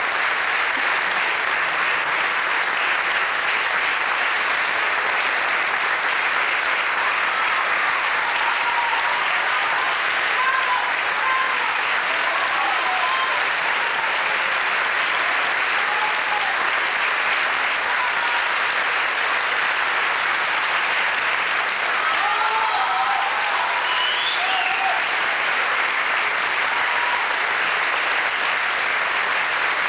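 Theatre audience applauding steadily, with a few faint calls rising above the clapping.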